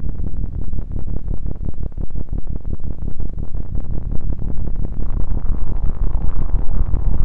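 Synthesized atmospheric glitch sound effect: a deep, low drone chopped up by rapid, irregular stuttering clicks, with a higher hissing layer coming in about five seconds in.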